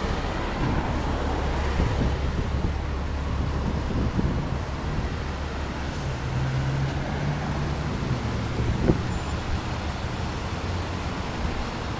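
Street traffic: a steady low engine rumble from vehicles on the road, its hum shifting pitch about six seconds in, with one brief knock near the end.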